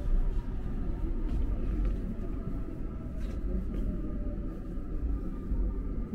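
Seoul subway rumble: a steady low rumble with a faint steady whine above it and a few light ticks midway.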